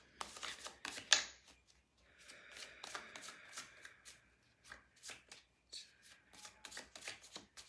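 Deck of oracle cards shuffled overhand by hand: a run of quick, irregular card taps and slides as packets of cards drop from one hand onto the other.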